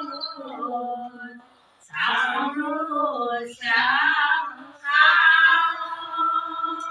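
Women singing devotional naam, long drawn-out notes gliding up and down, with louder passages about two, four and five seconds in.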